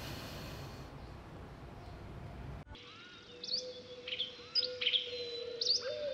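Low room hum for the first couple of seconds, then, from about three seconds in, a caged red-whiskered bulbul giving repeated short, sharp chirps and calls over a steady held note.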